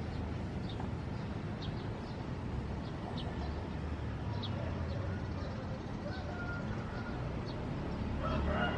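Quiet outdoor background: a steady low hum with faint, short bird chirps scattered throughout, rising a little near the end.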